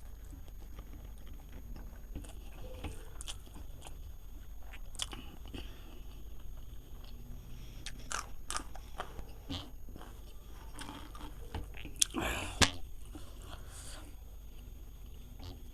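Close-up eating sounds: a person chewing and biting grilled barbecue meat, with scattered small crunches and clicks. Two sharper, louder clicks come about three quarters of the way through.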